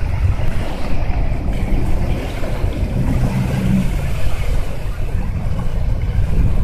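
Outboard motor of a small fire-brigade boat running as it passes close by, its hum clearest in the middle, under heavy wind rumble on the microphone.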